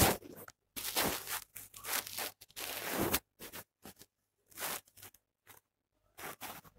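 Chopped onions and green chillies frying in oil in a stainless steel pan, stirred with a wooden spatula: irregular short bursts of sizzling and scraping.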